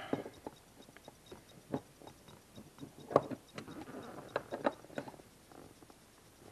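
Irregular light clicks and taps of small metal parts and a hand tool being handled at a car seat's base, with the sharpest knock about three seconds in.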